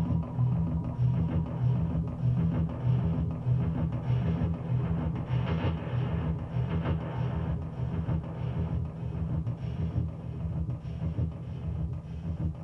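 Music with a steady, pulsing low beat.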